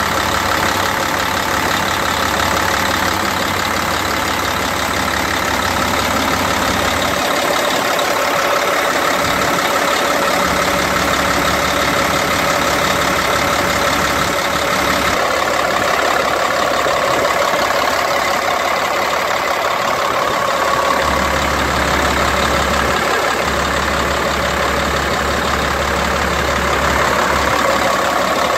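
Caterpillar C10 inline-six turbodiesel in a Peterbilt 379 idling steadily, heard up close in the open engine bay.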